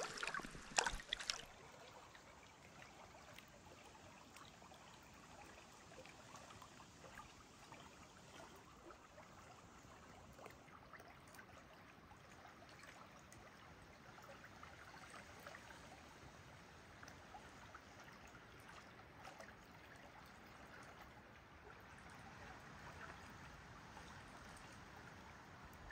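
Faint, steady flow of a small trout stream, with a few brief louder noises in the first second.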